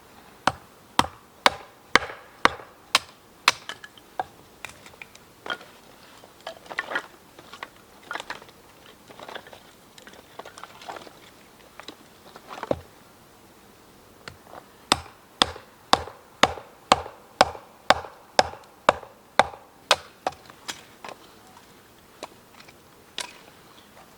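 Two runs of sharp chopping or hitting strikes, about two a second, each with a short ring. Softer, irregular knocks fall between the runs.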